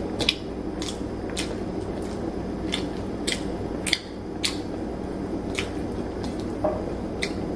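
Eating sounds: scattered short, sharp clicks and smacks, roughly one a second, as food is chewed and picked off a plate by hand, over a steady low room hum.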